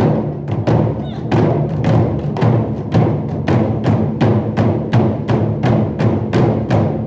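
Percussion music of deep drums struck in a steady, rapid rhythm, several strikes a second.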